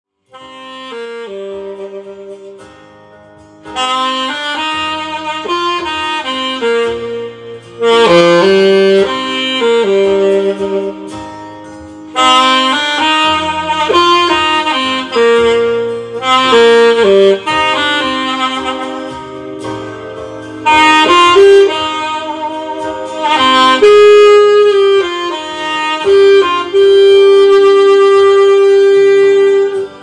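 Saxophone playing a slow melody of held and moving notes over a lower accompaniment. It comes in loudly about four seconds in, after a soft opening, and ends on one long held note.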